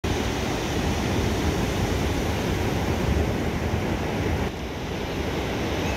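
Ocean surf washing onto a beach, with wind rumbling on the microphone. The level drops slightly about four and a half seconds in.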